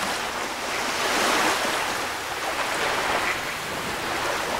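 A steady rushing noise like wind or sea surf, swelling about a second in and then easing off.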